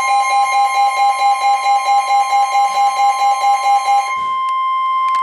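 Emergency Alert System attention signal: a loud, steady two-tone alarm, pulsing about five times a second. The lower tone drops out about four seconds in while the higher tone holds on, heralding the warning message that follows.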